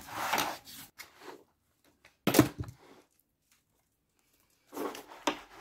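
Glossy paper pages of a handmade altered book rustling as they are handled, with one sharp, loud click about two seconds in.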